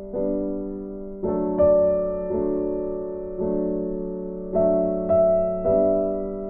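Background piano music: gentle chords and notes struck roughly once a second, each fading away before the next.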